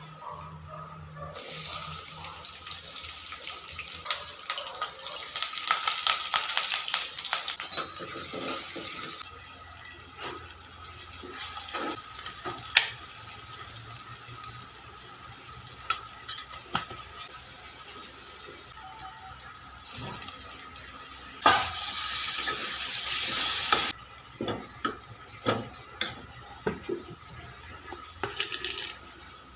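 Tap water running into a sink in two spells, a long one and a short one, with scattered clinks and knocks of things being handled.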